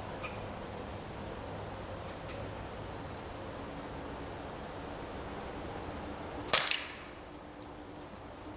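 A single shot from a Ruger Air Hawk break-barrel spring-piston pellet rifle about six and a half seconds in: one sharp crack that dies away quickly.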